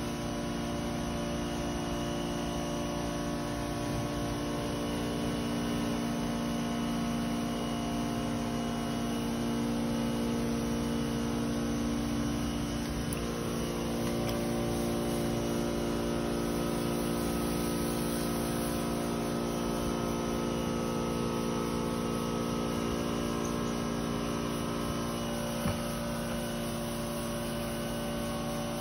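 Steady electric hum made of several held tones, as from pond equipment's motor running continuously.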